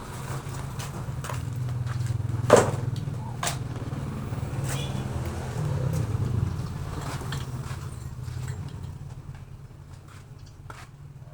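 Low engine hum of a passing motor vehicle, swelling over several seconds and then fading away, with a sharp click or knock about two and a half seconds in and a few lighter ticks.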